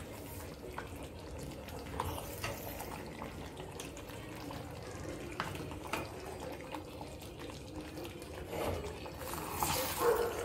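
Thick mutton curry sizzling and bubbling in a pressure-cooker pot as a silicone spatula stirs it, with scattered light taps and scrapes of the spatula against the pot. It grows louder near the end.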